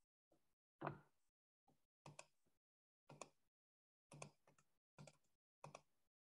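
Faint computer mouse clicks, a few short taps at a time in irregular clusters, entering numbers on an on-screen calculator; the loudest comes about a second in.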